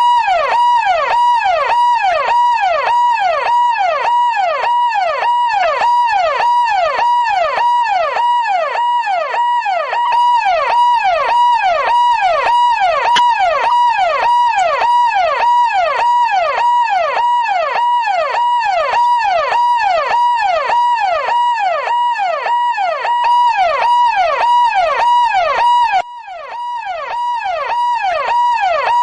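Police car siren sounding a fast, repeating wail, each cycle a sweep up and down in pitch a little more than once a second, with a steady pulsing tone alongside. The level drops briefly about 26 seconds in, then builds back.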